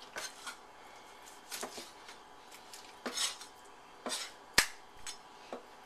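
A cleaver cutting and scraping on a wooden cutting board as fat is trimmed from pork spare ribs: a few short, separate scrapes and knocks, with one sharp knock of the blade on the board about four and a half seconds in.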